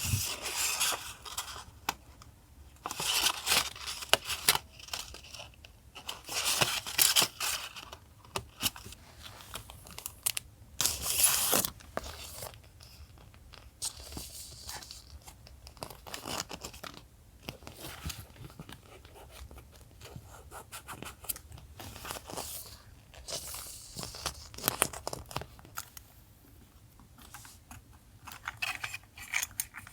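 Paper being torn in a few short, noisy strokes, with quieter rustling and light taps of paper handling in between.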